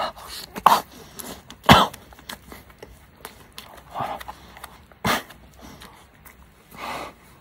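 Eating a fried bacon potato croquette: crunchy bites and chewing, with sharp crunches about a second and a half in and again about five seconds in, and a few short breathy mouth sounds between.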